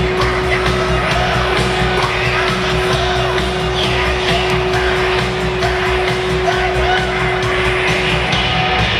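Music with a steady low beat and one long held note that stops near the end, over crowd noise.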